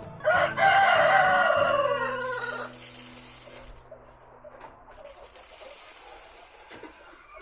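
A rooster crows once: a loud call of about two and a half seconds that starts just after the beginning and drops in pitch at its end. Chickens cluck quietly for the rest of the time.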